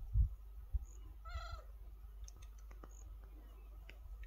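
A low thump at the very start, then a short, wavering mewing animal call about a second and a half in, with faint scattered clicks.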